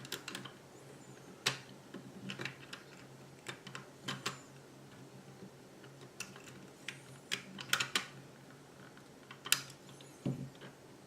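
Irregular small clicks and taps of an Allen key working the set screws into the 3D-printed plastic transmission parts, over a faint steady low hum.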